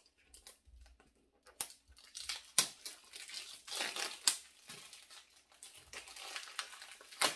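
Crinkling of thin plastic film being peeled and torn off a small cardboard cosmetics box, with several sharp snaps of the foil.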